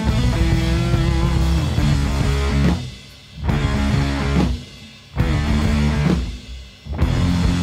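Instrumental rock music with guitar and drums, the riff stopping short three times for brief pauses.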